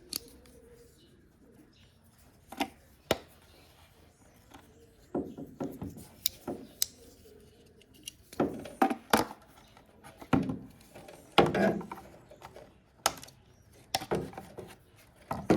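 Sharp clicks and bursts of plastic rattling and knocking: a zip tie being cut, then a plastic taillight housing and its wiring being handled and moved into place.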